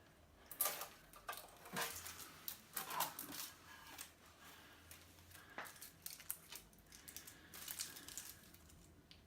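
Protective plastic film being peeled and crumpled off an amplifier's front panel: irregular crinkling and crackling with small clicks, busiest in the first few seconds.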